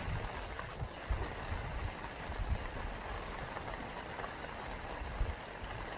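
Campfire burning steadily: a soft hiss with small crackles and pops, and low thumps now and then.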